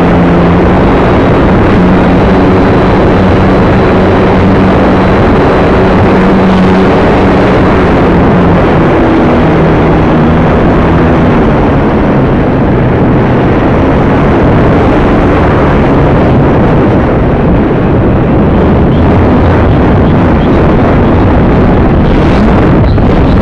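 Multiplex AcroMaster electric RC plane in flight, heard from its onboard camera: a loud, steady rush of wind over the microphone mixed with the motor and propeller drone. The drone's pitch steps up and down as the throttle changes.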